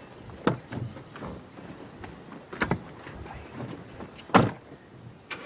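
A few separate knocks and thumps at uneven intervals over a low background. The loudest comes about four and a half seconds in.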